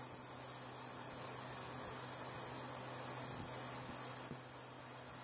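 CNC milling machine spindle running with a steady high-pitched whine over a low hum, as a small end mill circle-mills a hole in a sheet-metal receiver.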